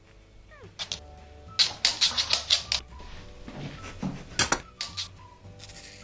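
A quick run of sharp clicks or taps, then a few more separate hits a couple of seconds later, over soft background music.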